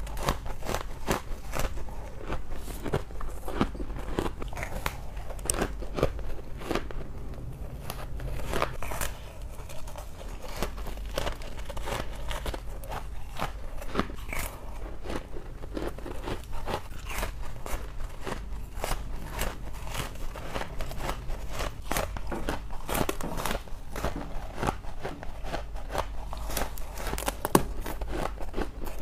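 Soft freezer frost being bitten and chewed close to the microphone: a dense, continuous run of crisp crunches and crackles.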